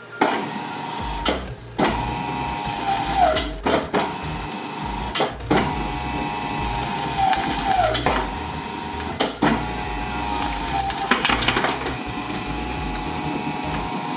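A twin-shaft shredder's motor runs with a steady whine while its steel cutter discs tear apart a stuffed plush toy, with several sharp cracks along the way. The whine sags in pitch a few times as the torn fabric winds around the discs and slows the shredder.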